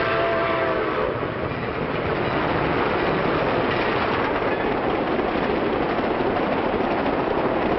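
A train whistle sounding a chord of several notes that cuts off about a second in, over the steady running noise of a moving train.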